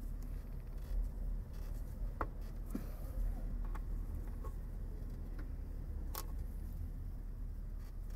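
A few light clicks and taps of hands handling hoses and fittings in a car's engine bay, over a steady low rumble.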